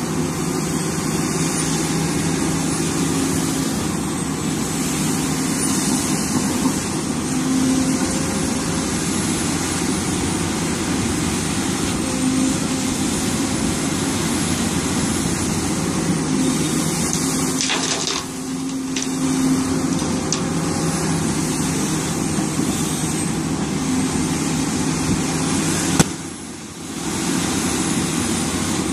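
Hidromek HMK300LC-3 excavator's diesel engine running under working load: a steady hum with a higher tone that comes and goes. Near the end there is a single sharp knock, followed by a brief dip in the sound.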